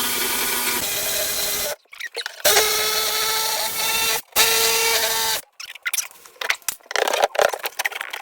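Handheld power tool run in three bursts of about two, two and one seconds at a steady pitch, trimming a piece to size, followed by a string of short irregular knocks and rattles.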